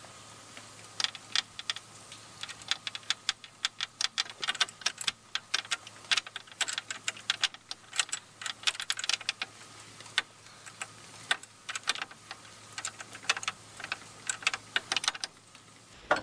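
Wrench clicking in quick, irregular runs as adapter fittings are tightened into the ports of a hydraulic cylinder.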